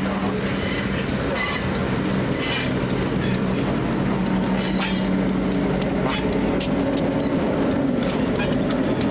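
A train of passenger coaches rolling past behind an EMD SD-9 diesel locomotive, its wheels clicking irregularly over the rail joints. Under the clicks is the locomotive's steady engine hum, growing fuller as the SD-9 draws close.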